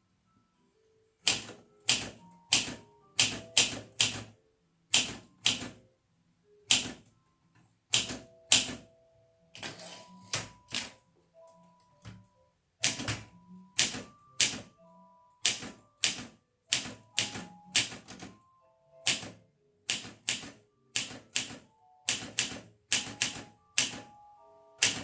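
Olympia SM 2 portable manual typewriter being typed on: sharp separate keystrokes of the typebars striking the platen, at an unhurried pace of one to three a second with short pauses between words.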